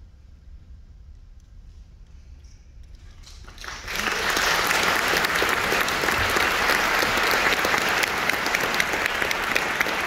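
A hushed concert hall for about three and a half seconds after the band's final chord, then the audience starts applauding. The applause rises quickly and stays loud and steady.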